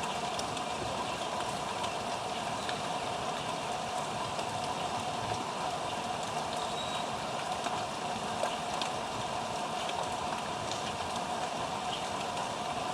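Steady mechanical background hum with a few faint, short chirps from small birds.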